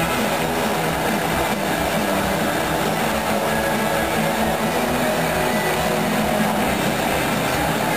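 Motorcycle engines running steadily inside a steel-mesh globe of death, a continuous loud drone without a break.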